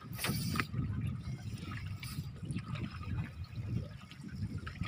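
Sea water lapping and sloshing against the hull of a small boat, uneven and continual.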